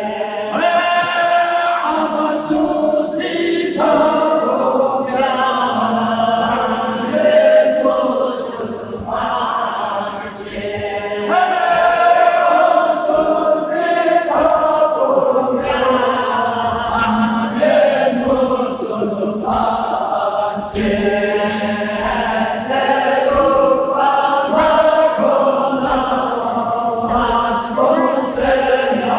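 A male reciter chanting a Balti noha, a Shia lament, unaccompanied into a microphone. The singing comes in long melodic phrases that break every few seconds.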